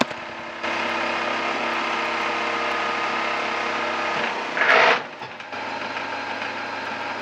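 A Warco lathe running, spinning a rebuilt Lucas motorcycle dynamo with a steady mechanical hum. About four and a half seconds in there is a brief loud rushing clatter as the speed is changed, and then it runs on more quietly at the lower speed of about 1250 RPM.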